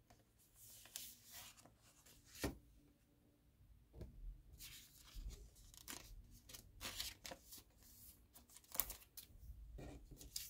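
Photo prints being slid out of their shiny foil wrappers and handled over a pile of other prints: crinkling and rustling of the wrappers and the prints, with a few sharp ticks.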